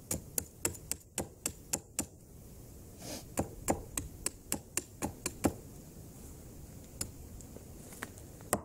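Small hatchet used as a hammer, striking the top of a wooden stake to drive it into the ground: quick sharp knocks, three or four a second, in two runs, then a few single strikes near the end.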